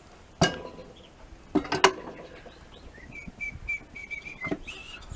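A few sharp knocks as a circular saw is set down into the slot of a homemade wooden table saw to test the fit. In the second half a bird gives a run of short, high, repeated chirps.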